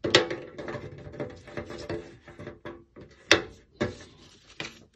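Paper cut-outs being handled and slid about on a tabletop, with a few sharp knocks, the loudest about three seconds in.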